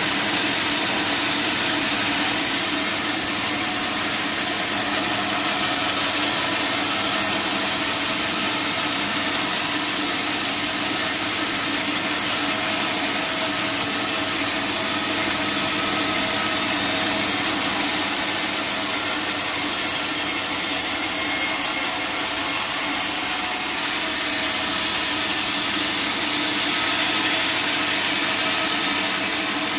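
Sawmill saw blade cutting through teak wood in one continuous cut, with the machine's steady hum underneath. The high hiss of the cut changes now and then.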